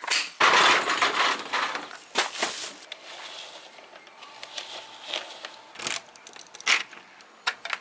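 A sliding-door latch flipped and the door slid open with a loud rattle lasting about two seconds, then a string of sharp clicks and knocks as a folding sawhorse is handled and a key turns in a deadbolt lock.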